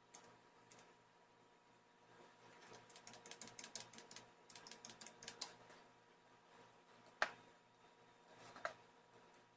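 Typing on a computer keyboard: a quick run of keystrokes from about two and a half to five and a half seconds in, then two single, louder key clicks later on, over a faint steady hum.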